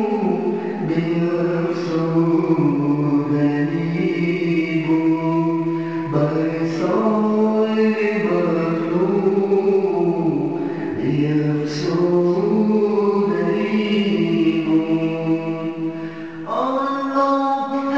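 Devotional vocal chant: long held notes that slide from pitch to pitch, phrase after phrase, with a new phrase starting strongly near the end.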